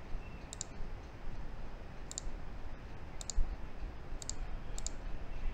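Computer mouse clicking about seven times, some clicks in quick pairs, over faint steady background noise.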